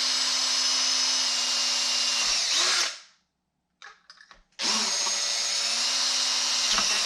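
Electric drill with a 4 mm bit running steadily under load, then winding down and stopping about three seconds in. After a brief pause with a few light clicks, it starts again and runs until the end.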